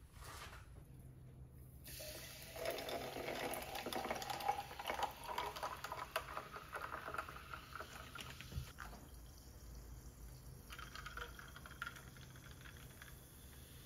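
Sparkling water poured from a plastic bottle into a tall glass of ice, running and fizzing for several seconds. A short knock follows, then a thinner, quieter trickle as a blue drink concentrate is poured in from a small glass bottle.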